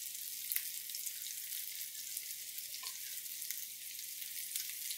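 Flour-dredged chicken thighs frying in olive oil in a frying pan, searing on the first side: a steady sizzle with scattered small crackles.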